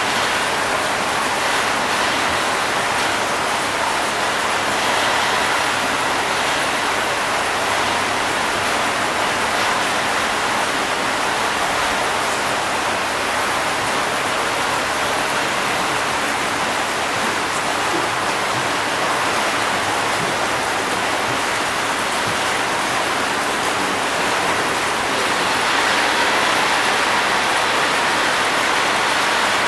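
Steady rush of moving water, even and unbroken, a little louder near the end.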